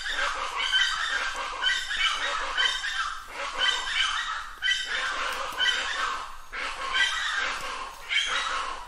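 Plain chachalaca (Ortalis vetula) calling: repeated calls one after another with no pause, a new call roughly every two-thirds of a second.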